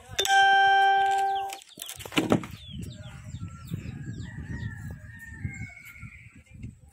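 A rooster crowing loudly once about a quarter second in, the call held on one pitch for over a second before it breaks off, followed by a sharp knock about two seconds in and a fainter, wavering call a few seconds later.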